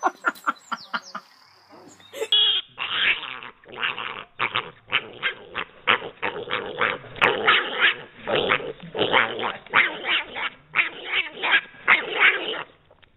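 Piglet squealing over and over in short, harsh bursts, about three a second. It is preceded by about two seconds of quick short clicks or taps.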